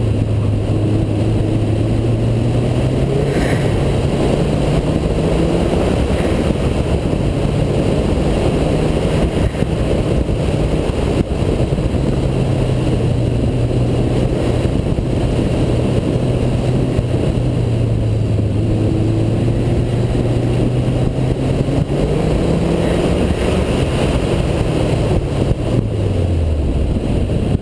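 Subaru WRX STI's turbocharged flat-four engine heard from inside the car on an autocross run, its pitch rising and falling as the driver works the throttle between cones. Near the end the engine note falls away steeply as the car slows.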